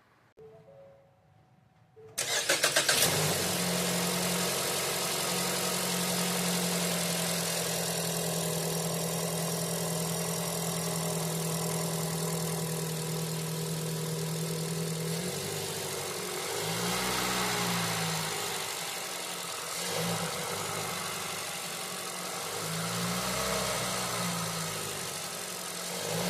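2019 Ford Escape's 2.5-litre four-cylinder engine cranked by the starter and catching about two seconds in, then running at a steady fast idle that drops lower after about fifteen seconds. Near the end the engine speed rises and falls twice. It is the first start after new spark plugs, and it runs smooth.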